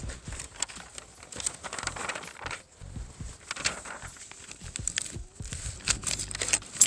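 Paper rustling as the pages of an assembly manual are leafed through and handled, with scattered light clicks and a sharp click near the end.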